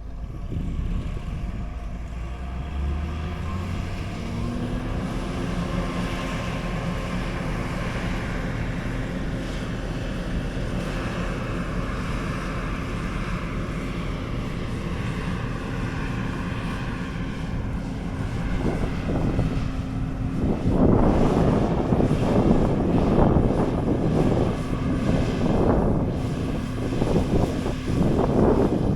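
A large engine running steadily, its pitch rising a few seconds in and then holding. From about twenty seconds in, gusts of wind buffet the microphone.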